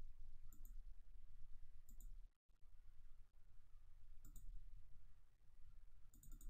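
Faint computer mouse clicks, mostly in quick pairs of double-clicks, about four times, over a low steady hum.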